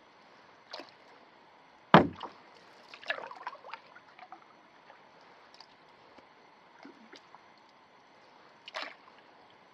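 Canoe paddling on calm lake water: a handful of separate paddle splashes and drips, with the loudest, sharpest stroke about two seconds in and a quick cluster just after it.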